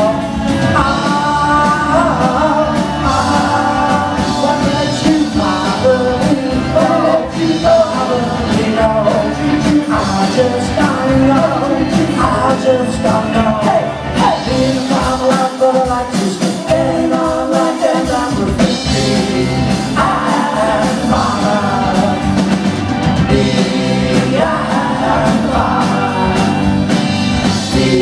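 Live pop-rock band playing a song: a lead vocal sung over drum kit, electric guitars and keyboards, heard through the hall's PA.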